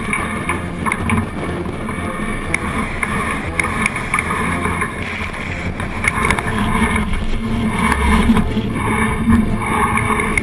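Wind buffeting the microphone of a deck-mounted camera on a sailing yacht under way, with water rushing along the hull and scattered short knocks from the deck and rigging.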